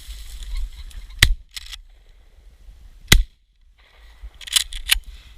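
Two shotgun shots about two seconds apart, sharp and loud, fired at a flushed pheasant. A quick cluster of smaller clicks and rustles follows near the end.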